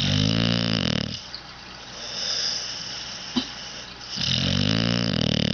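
A sleeping pit bull snoring: two loud, rattling snores about four seconds apart, with a softer hissing breath in between.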